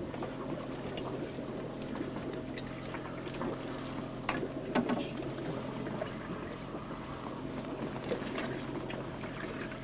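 Boat engine running at a steady hum, with a few sharp knocks about four to five seconds in.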